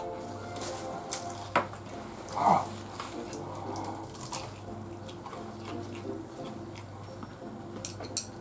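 Chopsticks clicking against a ceramic bowl as someone eats from it, with a handful of sharp clicks and one louder short eating sound about two and a half seconds in.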